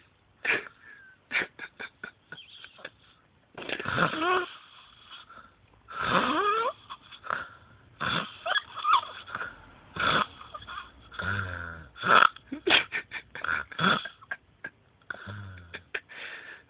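A man snoring loudly and irregularly in his sleep, with wheezing, whistling breaths, some of them gliding in pitch. Twice, about two-thirds of the way through and again near the end, the snore turns into a low rattle.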